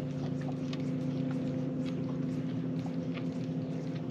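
A boat motor running with a steady, even hum, with a few faint ticks over it.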